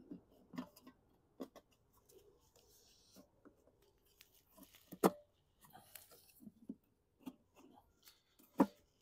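Hands fitting the plastic fuel tank onto a Briggs & Stratton lawn mower engine: scattered clicks, knocks and rustling of plastic parts, with two sharper knocks about five seconds in and near the end.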